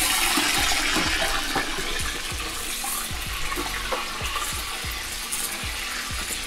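Pork pieces frying in a kazan of hot sunflower oil: a loud, steady sizzle that eases slightly after the first second or so, with scattered small pops through it.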